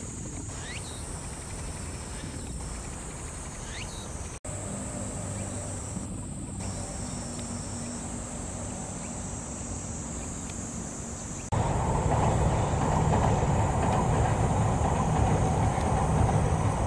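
Steady outdoor background rumble and hiss with a high steady hiss above it, and a few faint short rising chirps in the first few seconds. About two-thirds through, the rumble jumps suddenly louder.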